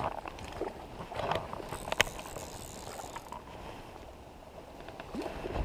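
Scattered clicks and rustling from an angler handling a fly rod and reel and brushing through bankside ferns and grass, with one sharp click about two seconds in.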